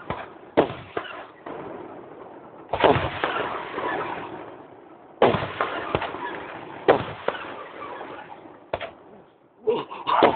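Aerial firework shells bursting overhead: about five sharp bangs a couple of seconds apart, each trailing off in a fading rumble.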